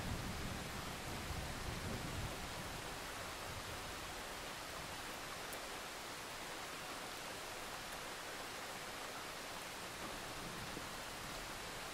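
Steady, even hiss with no distinct strokes or tones, under a low rumble that dies away over the first two seconds.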